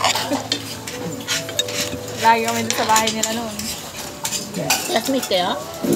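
Metal fork clinking and scraping against a metal pan while forking up pancit noodles, in a string of short sharp clicks.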